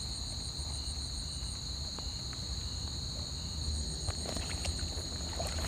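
Steady evening chorus of crickets and other insects, several high, even trills layered together, with a shorter chirp repeating about twice a second through the first few seconds. A few soft clicks and rustles come in during the second half.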